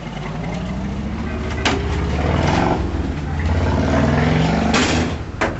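A vehicle engine running, its pitch rising and falling in the middle, with a couple of sharp clicks or knocks, one about a second and a half in and one near the end.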